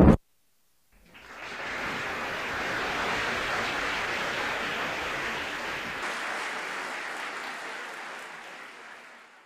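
Music cuts off at the very start; after a moment of silence an audience applauds steadily for about eight seconds, tailing off near the end.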